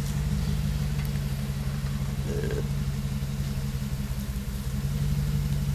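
4x4 engine idling steadily with a low, even hum.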